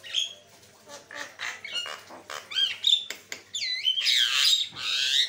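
Javan myna calling: a string of short harsh notes and clicks, then several curving whistled notes a little past halfway, ending in a long, loud harsh screech.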